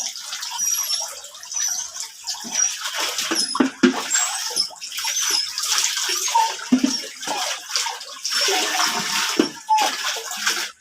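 Water splashing and pouring in irregular bursts while a dog is being washed, with short high chirps recurring over it.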